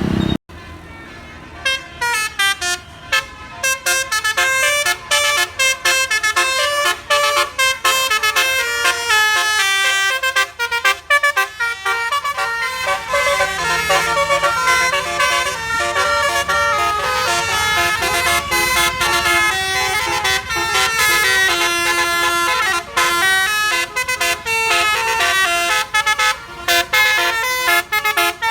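Bus 'telolet' basuri horn, a multi-tone musical horn set, playing a quick tune of short stepping notes over and over with brief breaks.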